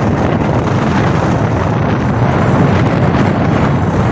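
Steady rush of wind on the microphone of a moving motorbike, with the bike's engine and road noise running underneath.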